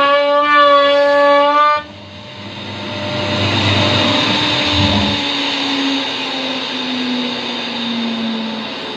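CNC router spindle whining at a steady pitch, then cutting wood with a loud rasping noise from about two seconds in, its tone sagging slowly under the load.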